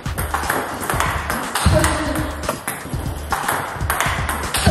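Table tennis rally: the plastic ball clicking off the paddles and bouncing on the table in quick succession, over background music.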